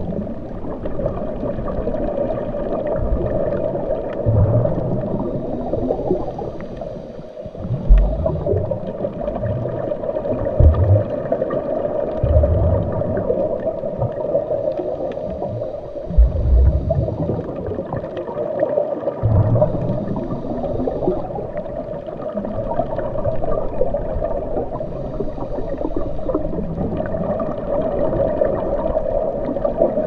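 Underwater ambience: a steady, muffled water rush with gurgles and occasional low thumps, the loudest about eight, eleven and sixteen seconds in.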